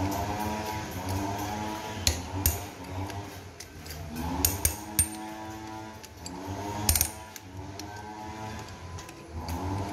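Metal hand tools clicking and clinking against a motorcycle engine's bolts as it is worked on with a wrench, several sharp clicks a second or two apart, over steady background music.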